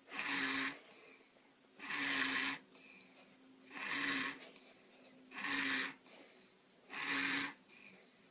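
Sleeping baby snoring in a steady rhythm: five noisy snoring breaths about every second and a half, each with a low hum, and a faint high squeak falling in pitch between them.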